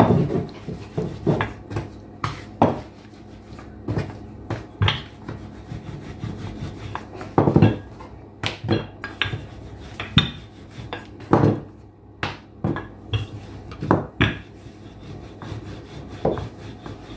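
Wooden rolling pin knocking and rolling on a stone countertop as samosa pastry sheets are rolled out and handled: a run of irregular knocks with rubbing between them.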